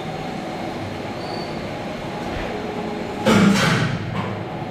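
Conveyor line with plastic modular belts and electric gear-motor drives, running steadily. About three seconds in, a louder burst of noise lasts about half a second.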